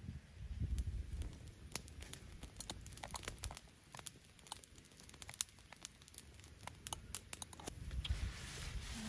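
Wood campfire crackling, with many sharp, irregular snaps and pops. There is a low muffled rumble about a second in, and near the end a rustling noise as large leaves are handled.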